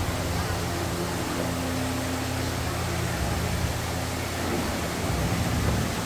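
Steady rushing noise like running water, with a low droning hum beneath it: the ambient sound of an indoor dark boat ride.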